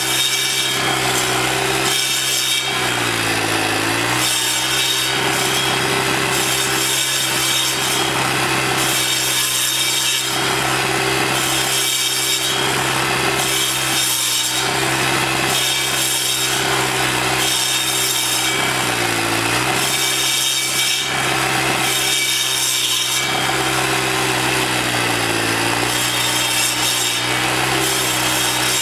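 Troy-Bilt four-stroke sidewalk edger fitted with a carbide-tipped blade, running at speed as the blade grinds into a tree stump at ground level, with a steady rasping hiss. The engine note dips under load and recovers about four times.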